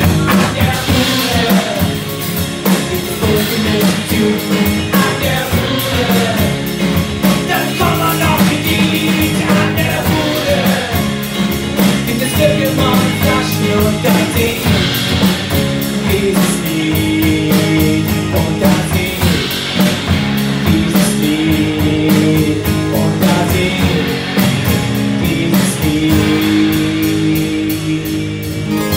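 Live rock band playing: drum kit, electric and acoustic guitars and bass guitar.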